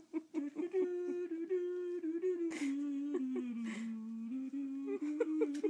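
A person humming a slow, held tune whose notes step down in pitch about halfway through, with a couple of brief rustles in the middle.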